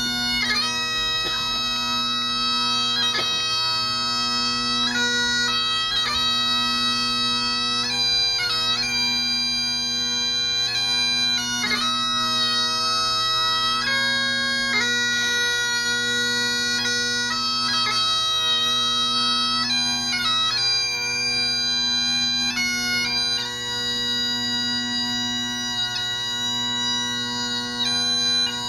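Bagpipes playing a slow melody over their steady drones.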